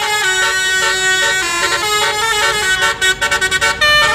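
Basuri telolet musical horn on a bus playing a tune: several tones sounding together and stepping from note to note, with a quick run of short staccato toots about three seconds in.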